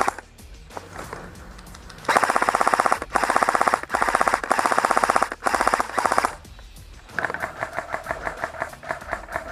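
Airsoft guns firing: several rapid full-auto bursts in quick succession, each under a second long, starting about two seconds in. Near the end comes a quieter, slower string of shots, about five a second.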